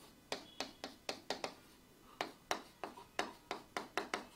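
Marker pen writing on a whiteboard: an irregular run of short, sharp taps, one with each stroke.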